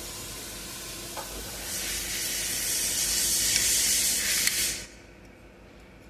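A pressurised spray hissing steadily for about three seconds, then cutting off suddenly, with a small click shortly before it starts.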